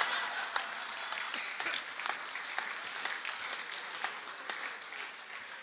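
Audience laughing and applauding after a joke, the clapping gradually dying away.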